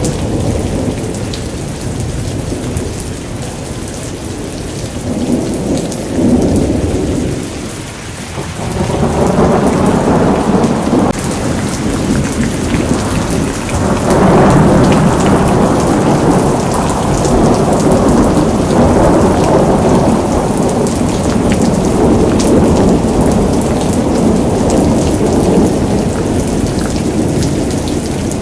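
Thunderstorm: heavy rain falling steadily with long rolling thunder. The rumble swells about five seconds in, eases briefly around eight seconds, then builds again and stays loud.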